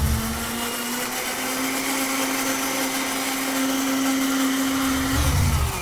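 Countertop blender motor running at speed, mixing egg whites, coconut milk and protein powder into a crepe batter. Its hum steps up in pitch about a second in, holds steady, then winds down near the end as it is switched off.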